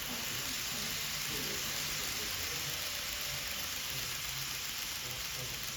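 Steady hiss of background noise, with faint indistinct voices murmuring underneath.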